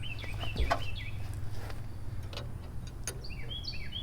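A songbird chirping in quick runs of short descending notes, once near the start and again near the end. In between come a few scattered sharp metallic clicks from a wrench working bolts on a VW engine, over a steady low hum.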